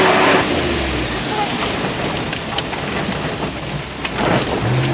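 Dodge Durango driving off-road, heard from inside: the engine runs low under a steady rushing, pattering noise from the tyres on the dirt trail.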